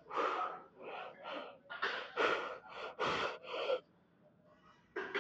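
A man breathing hard and fast during a heavy weightlifting set: a run of about nine sharp, forceful breaths in quick succession, stopping about four seconds in.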